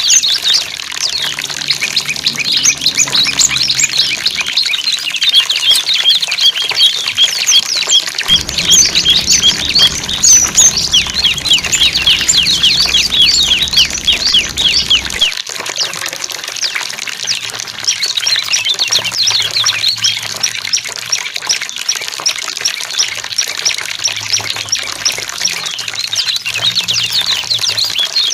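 Many small birds chirping and twittering in a dense, rapid chorus of short, quick chirps, over the sound of flowing, trickling water.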